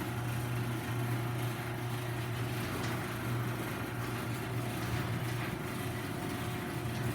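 Electric garage door opener running steadily as it moves the door, a continuous low motor hum.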